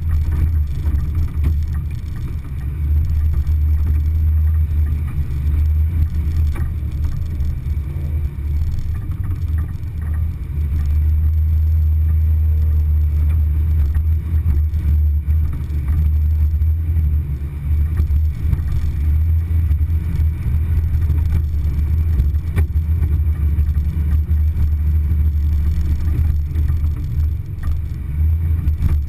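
Low, steady rumble of an off-road vehicle driving slowly along a rutted dirt trail, heard from on board.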